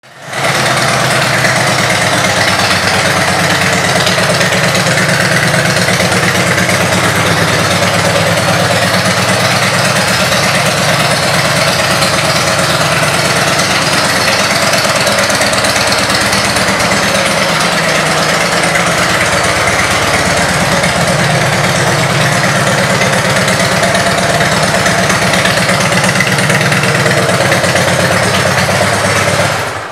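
2009 Harley-Davidson Dyna Fat Bob's Twin Cam 96 V-twin engine idling steadily and loudly, cutting off just at the end.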